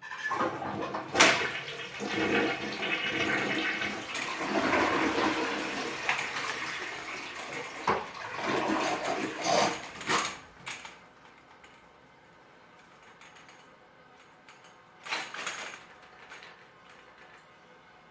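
Toilet flushing: a rush of water that starts suddenly and drains away after about ten seconds, with sharp knocks along the way, while the spring auger is pulled back out of the bowl. Two more knocks come near the end.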